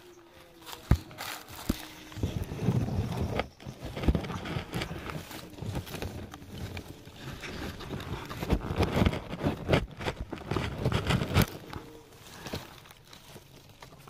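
Footsteps crunching and rustling through dry leaves and cut stalks, uneven and loudest through the middle, with a few sharp knocks in the first two seconds.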